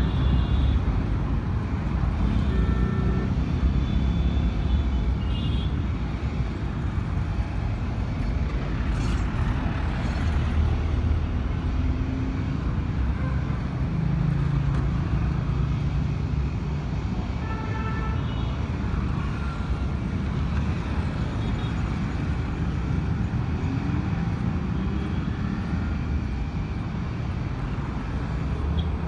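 Continuous road traffic at a busy junction: the engines of motorcycles, scooters and cars running and passing, with a few short horn beeps.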